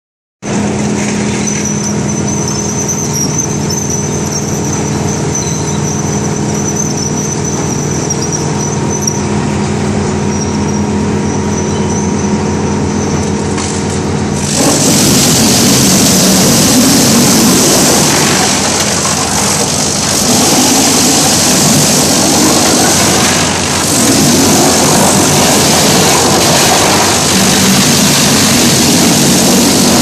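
Large pulp-mill log chipper and its log infeed conveyor: a steady machinery hum with a faint high whine, then about halfway through a sudden, much louder and harsher noise as debarked logs are fed in and chipped, dipping briefly twice.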